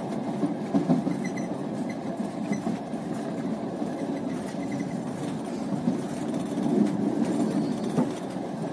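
Steady rumble of a passenger train running along the track, heard from inside the carriage, with a few sharp clicks of the wheels over rail joints about a second in and near the end.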